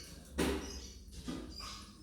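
Pet lovebirds chirping and squeaking: a short harsh call about half a second in and another just past a second, with thin high chirps between them.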